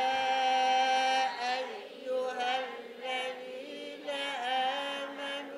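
Several voices chanting a Quran verse together in a slow melodic recitation, repeating a phrase after the teacher. It opens on one long held note, then goes on in shorter phrases that waver in pitch.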